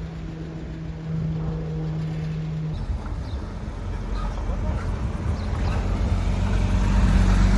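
Porsche engine running at a steady idle, then, after an abrupt change about three seconds in, a car engine rumbling louder and louder as the car approaches.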